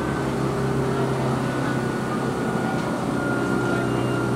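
Toyohashi Railway T1000 'Hotram' low-floor tram standing at a stop, its onboard equipment giving a steady hum with several held tones.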